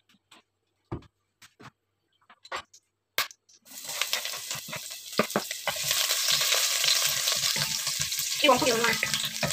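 A few light knocks and clicks, then about three and a half seconds in, chopped garlic drops into hot oil in a stainless steel pot and sizzles steadily while it is stirred with a wooden spoon.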